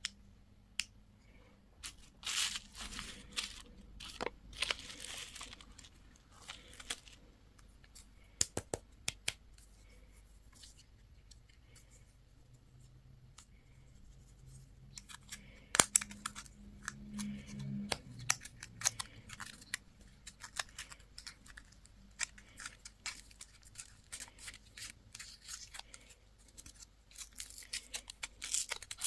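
Candy and toy packaging being opened by hand: plastic wrappers crinkling and tearing in short, irregular bursts, with scattered sharp clicks and taps.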